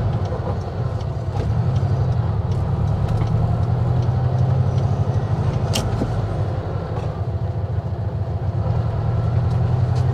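Mexican-built Volkswagen Beetle's air-cooled flat-four engine running under load as the car drives off slowly, heard from inside the cabin as a steady low drone that swells a little about a second and a half in. A single sharp click about six seconds in.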